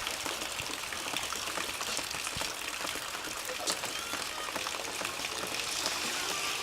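Steady rain falling: an even hiss with many small ticks of drops.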